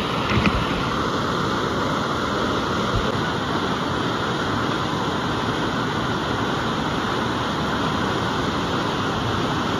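Steady rush of pumped water pouring up and over the padded slope of a sheet-wave surf simulator, churning into foam.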